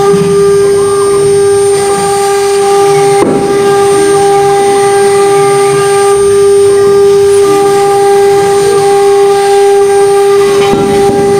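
CNC router's electric spindle running at speed with a steady whine while its cutter routes lettering into a wooden board, the cut adding a rough rasping underneath. A single sharp knock sounds about three seconds in.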